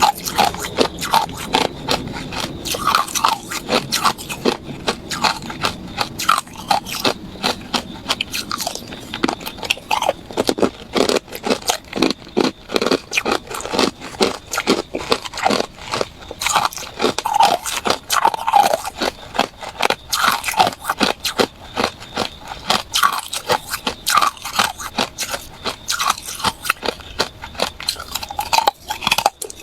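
Hard ice being bitten and chewed close to the microphone: rapid, dense crunching and cracking as the ice shatters between the teeth.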